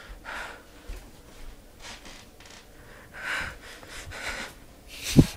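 A boy breathing hard in short, airy breaths close to a phone microphone, with a sharp thump near the end.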